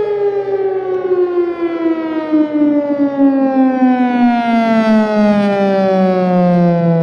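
Federal Signal Thunderbolt 1000A outdoor warning siren, loud, its pitch sliding steadily downward as it winds down.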